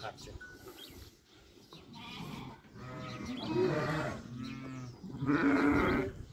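A flock of sheep and lambs bleating, with a few separate bleats in the second half after a quieter start.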